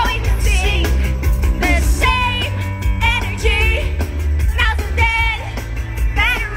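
Live pop music through an arena PA: a woman singing phrases with vibrato over a backing track with a heavy, steady bass.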